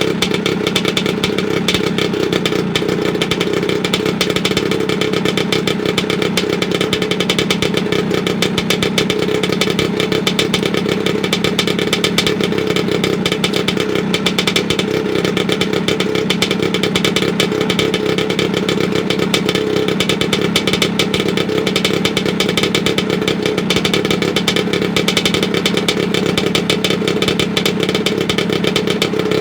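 Vespa PX 125's single-cylinder two-stroke engine running steadily through an aftermarket 'revolver' exhaust, a fast even buzzing beat that holds one pitch throughout.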